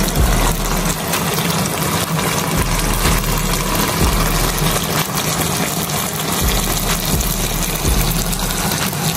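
Pork slices in sauce sizzling and bubbling in a frying pan: a steady, loud hiss of cooking liquid with no breaks.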